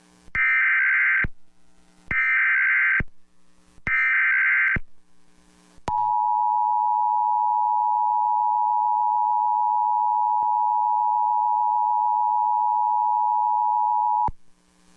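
Emergency Alert System activation: three one-second bursts of SAME header data tones, followed by the EAS two-tone attention signal (853 and 960 Hz together), held steady for about eight seconds. It announces a National Weather Service severe thunderstorm warning.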